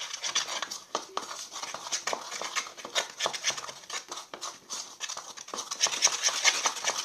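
A utensil scraping and clicking against a bowl in quick, irregular strokes while stirring a cornstarch and detergent mixture for slime, growing louder and busier near the end.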